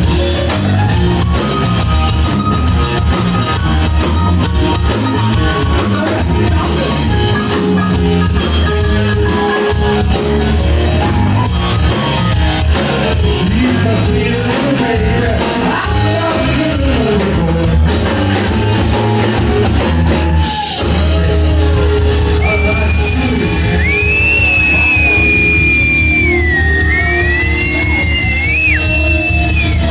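Live blues-rock band playing a shuffle, with drum kit, bass and electric guitars, and singing over it. Over the last several seconds a high held tone bends up and down above the band.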